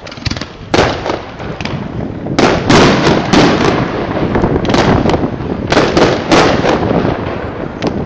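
Aerial firework shells bursting in a series of sharp bangs, coming several a second at the busiest stretch in the middle. Echoes and noise fill the gaps between them.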